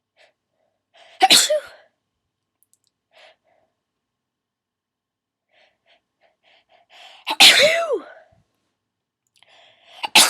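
A person sneezing in a fit: one sharp sneeze about a second in, then a run of short catching breaths building into a louder sneeze with a vocal 'choo' that rises and falls in pitch, and another sneeze right at the end.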